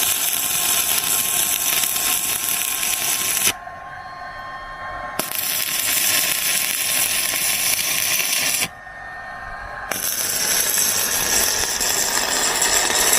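Electric arc from a handheld arc welding machine crackling and hissing as three welds are run, each about three and a half seconds long with short breaks between. The arc burns steadily, with no lag or cutting out.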